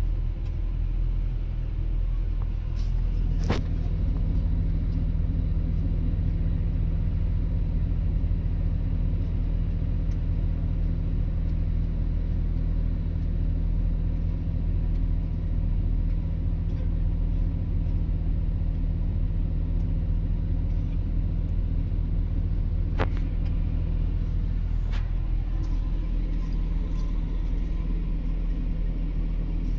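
Excavator's diesel engine running steadily with an even low drone, with a few sharp clicks or knocks over it, one a few seconds in and two more near the end.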